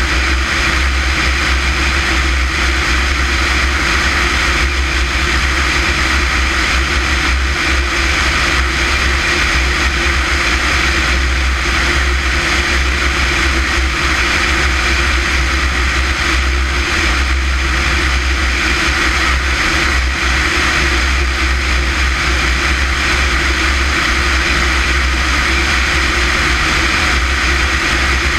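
Small propeller aircraft in level flight: a steady engine and propeller drone under loud wind rush and low rumble on a microphone mounted outside the airframe.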